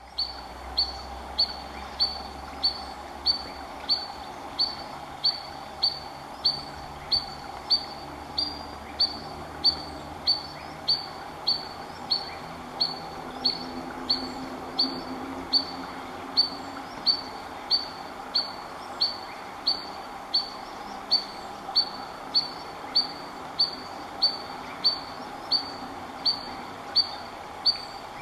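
Spotted Sandpiper giving a long, steady series of alarm calls: short high notes repeated about three every two seconds. The adult is alarmed by an intruder too near its fledglings.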